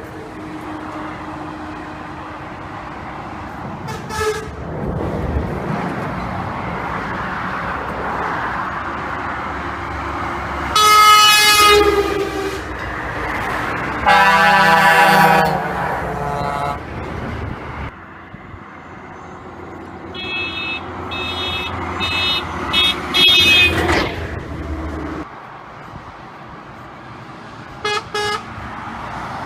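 Passing trucks sounding their horns over engine and tyre noise. There is a short blast about four seconds in, a loud blast around eleven seconds and a longer loud one around fifteen seconds. Then comes a run of short toots and two quick toots near the end.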